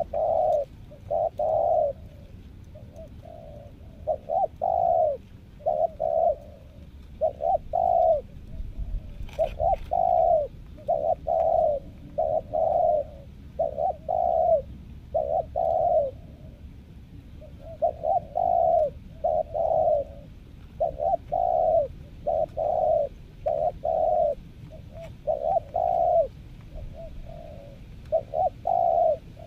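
Spotted dove cooing over and over: short low coos, usually in groups of two or three, in an unbroken series.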